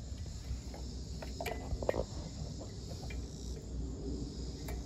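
Crickets chirping steadily in the background, with a few light knocks of parts being handled about a second and a half and two seconds in.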